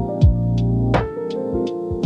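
Chill electronic music: held synthesizer keyboard chords and bass over a slow drum-machine beat, with a low kick just after the start and again near the end and a snare hit about a second in.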